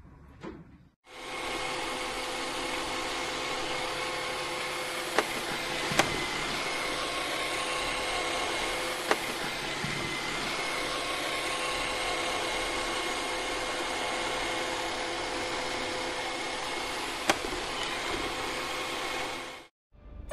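Robot vacuum cleaner running: a steady hiss of its motor and suction with a faint steady whine in it, broken by four sharp clicks.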